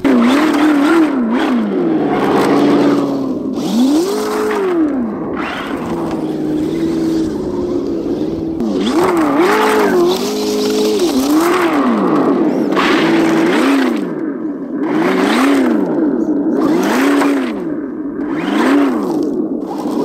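Simulated V8 engine note from an RC truck's ESS-One sound-kit speaker, revving up and falling back over and over with the throttle. Over it come repeated bursts of tyres scrabbling and spraying frozen snow and grit.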